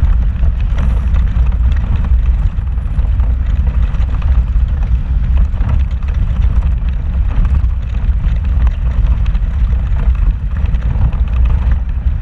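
An off-road vehicle driving slowly over a rocky trail, heard from inside the cabin: a steady low engine and tyre rumble with many short knocks and rattles from the rough ground.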